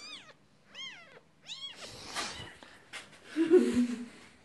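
Siamese kitten mewing: three high, short cries, each rising and falling, about a second apart. Then rustling, and a louder, lower, wavering call about three and a half seconds in.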